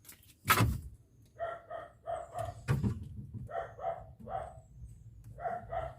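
A dog barking in short yips, mostly in quick pairs, over and over. Two sharp knocks sound near the start and about halfway through.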